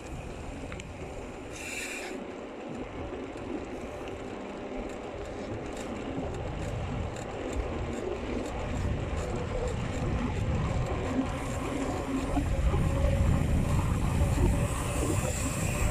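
Wind buffeting the microphone of a handlebar-mounted phone, with the rumble of mountain bike tyres rolling on asphalt. It grows louder from about halfway through and is loudest near the end as the bike picks up speed.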